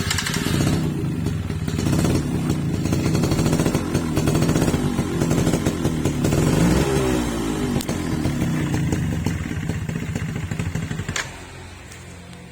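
Suzuki Tornado GX motorcycle engine running just after starting, with its pitch rising and falling briefly about halfway through as it is revved. About eleven seconds in the sound drops sharply with a click.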